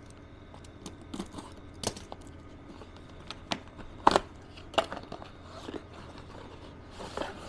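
Cardboard drone box being handled and opened by hand: scattered light taps, scrapes and rustles, with a sharper knock about four seconds in.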